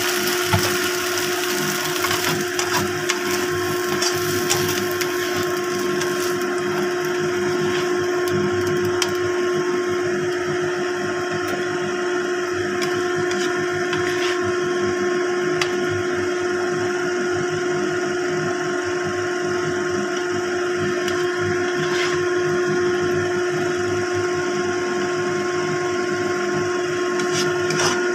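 Stir-fry sizzling and sauce bubbling in a wok, with a spatula clicking against the pan now and then, over a loud steady hum.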